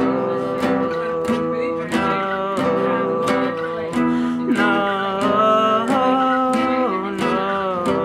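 Acoustic guitar strummed in a steady rhythm, about two strokes a second, between sung lines of an improvised song. A held, wavering note sits over the strumming through the middle and later part.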